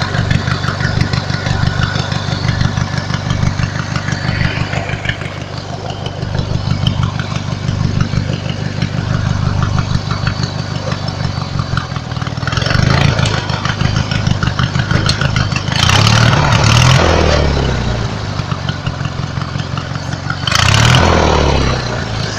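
Riding lawnmower engine idling with a string-belt-driven alternator added, a sound the owner calls a weird noise. It is revved up briefly and let back down three times in the second half.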